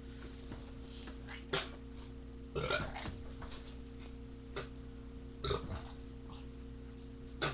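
A man burping twice, a few seconds apart, the first burp the longer. A sharp click comes about a second and a half in and another near the end, over a steady electrical hum.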